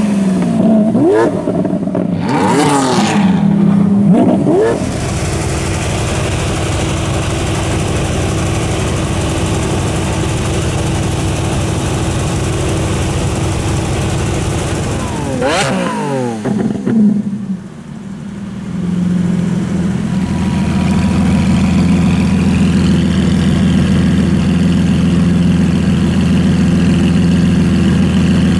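Lamborghini Aventador LP700-4's V12 revving and pulling away, its pitch rising and falling through the first few seconds, then idling steadily. About halfway through it gives one sharp throttle blip that rises and falls quickly, and it then settles into a louder steady idle.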